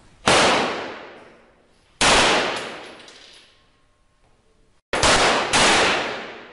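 Four 9mm pistol shots, each ringing on in an echo that fades over about a second and a half. The first two are about two seconds apart; the last two come close together, about half a second apart.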